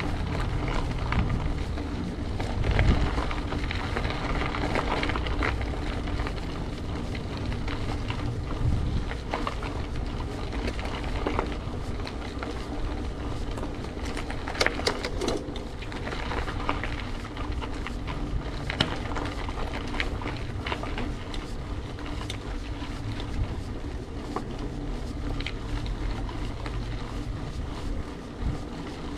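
Steady rush of wind on the microphone and rolling noise of a bicycle being ridden, with scattered small clicks and rattles.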